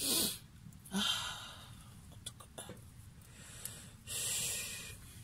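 Three breathy rushes of air close to the microphone, like snorts or sniffs: two short ones about a second apart, then a longer one near the end. Faint crackles from the burning wood stove come between them.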